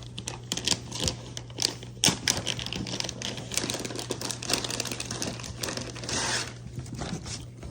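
Dogs' claws clicking and tapping irregularly on a hard floor as they fidget while waiting for treats, with a brief rustle about six seconds in.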